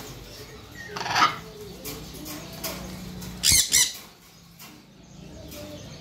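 Blue-and-gold macaw flapping its wings and squawking: a loud harsh burst about a second in, then two short squawks close together about three and a half seconds in.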